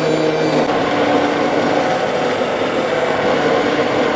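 Cordless KitchenAid hand blender running steadily as it purées chunky cauliflower and potato soup in a stainless steel pot, its motor whirring over the churn and froth of the liquid.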